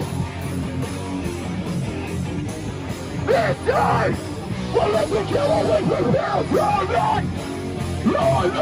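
Hardcore punk band playing live, loud and dense, with a vocalist yelling lines over it from about three seconds in.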